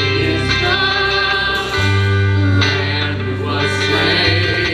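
Mixed church choir singing a worship song, accompanied by acoustic guitars, over sustained low notes that change every second or two.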